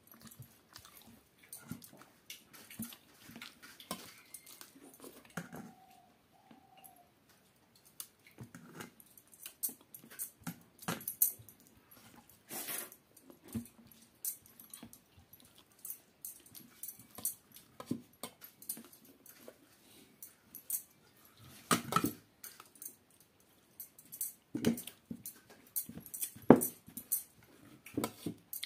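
Close-up hand-eating sounds: wet chewing and lip smacks in irregular sharp clicks, with fingers mixing and scraping rice on a steel plate.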